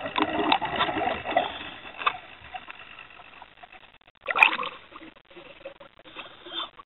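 Water noise picked up by a camera underwater: a busy run of small clicks and splashy noise that dies down after about two and a half seconds, with one sharp, loud sound about four and a half seconds in.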